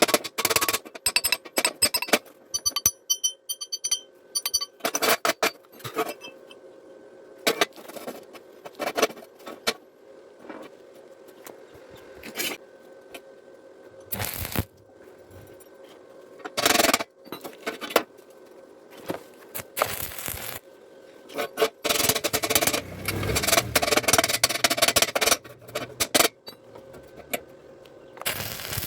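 Metalwork on steel reinforcing bar: irregular clinks and scrapes, with a few seconds of dense crackling about two-thirds of the way through, over a faint steady hum.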